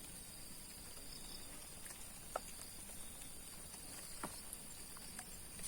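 Faint outdoor insect chorus: a steady, high-pitched drone, broken by a couple of soft clicks partway through.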